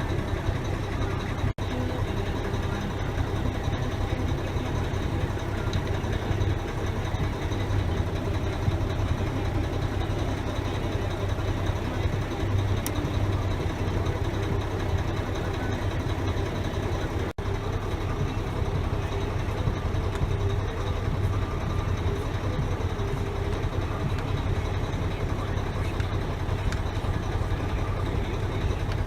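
A Mack CH truck's diesel engine idling steadily with a low hum, cutting out briefly twice.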